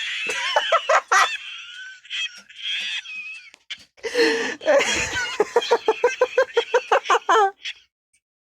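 High-pitched laughter-like vocal sound, breaking into a long run of quick repeated ha-ha pulses, about six a second, in the second half, then cutting off.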